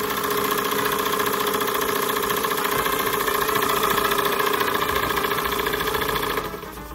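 Model double-acting slide-valve steam engine running fast and steady: a rapid, even beat over a steady whine. Near the end the sound drops away as a hand moves the Stephenson's link reversing lever.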